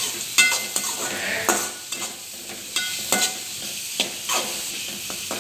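Chopped onions and curry leaves frying in hot sesame oil, sizzling steadily, while a spatula stirs them and scrapes across the pan in a few irregular sharp strokes.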